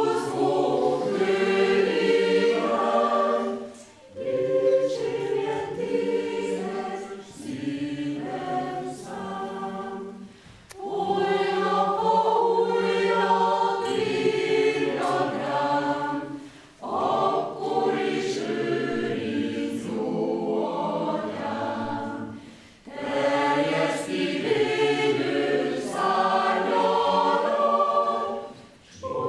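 Mixed choir of adults and children singing, in phrases of about six seconds with short pauses for breath between them.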